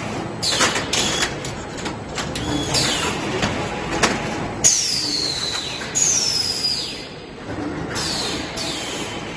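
High-speed CW/UW drywall profile roll forming machine running, with a steady machine din and sharp metal clanks every second or two as the steel profiles are cut and stacked. Several clanks are followed by a high ringing whine that falls in pitch.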